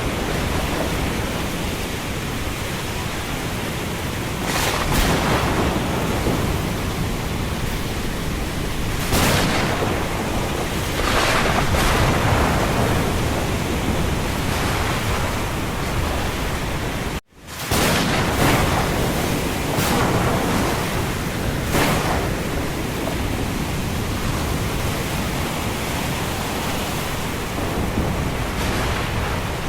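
Thunderstorm ambience: a steady rush of rain and wind with several short, louder surges every few seconds. About seventeen seconds in the sound cuts out abruptly for a moment, then resumes.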